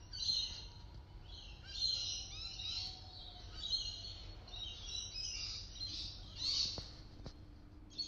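Birds chirping and calling in quick repeated bursts, with a faint low rumble underneath.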